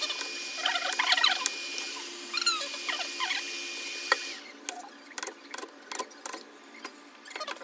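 A cleaver slicing boiled pork belly on a wooden cutting board. There are high squeaky scraping sounds in the first half, then a quick run of sharp knocks as the blade strikes the board.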